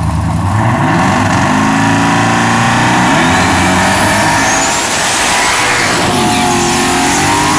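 Ford Mustang drag car's engine revving hard, its pitch climbing about a second in, holding high, then dropping and climbing again near the end.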